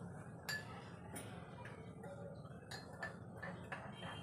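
Metal spoon stirring a drink in a drinking glass, clinking lightly against the glass about twice a second in an uneven rhythm.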